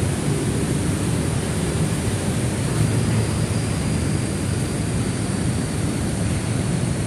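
Steady rumbling noise, heaviest in the low end, with no distinct events.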